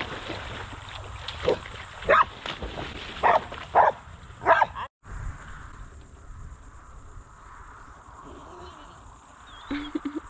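Australian shepherd barking: five sharp barks in the first half, irregularly spaced, then the barking stops about halfway and only a low steady background remains.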